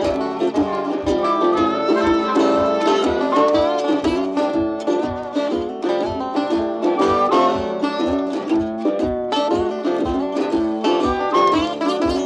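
Background music: string-band tune with plucked and bowed strings over a steady bass beat.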